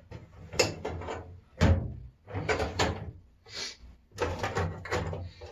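A run of metal clanks and scrapes as vise parts and tools are picked up and handled, with the loudest knock about a second and a half in.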